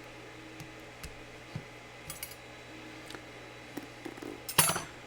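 Small metal tools and parts being handled on a workbench: a few faint clicks and light clinks, then one short, louder metallic clatter near the end, over a steady low hum.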